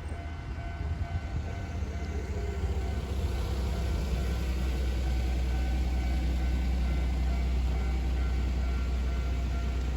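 Kintetsu electric train running by on the line at a level crossing: a low rumble that grows louder from about three seconds in and then holds steady.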